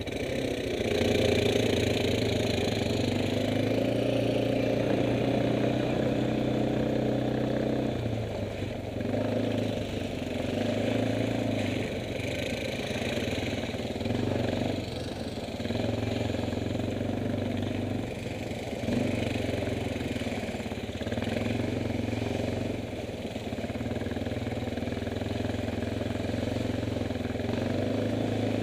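Kymco MXU 500 quad bike's engine running while riding, its pitch rising and falling several times as the throttle is opened and eased.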